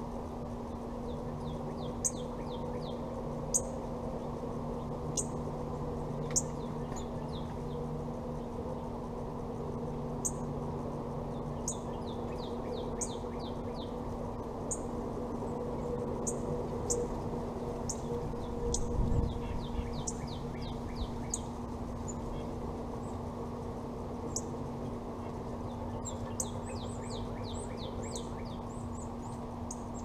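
Small songbirds calling: scattered short, high chirps and quick trilled runs of notes. Under them runs a steady low hum, and there is a brief low rumble a little past halfway.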